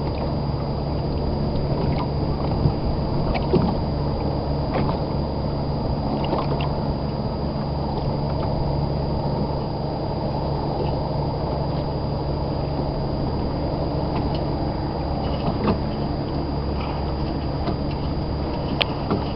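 A small boat under way: a steady low engine hum with water sloshing and splashing against the hull, and a few light knocks and splashes.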